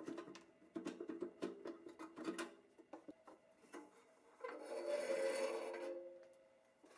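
Workshop hand-work noises: a quick run of sharp taps and clinks with a faint metallic ring, then a rasping rub that swells for about two seconds and fades out.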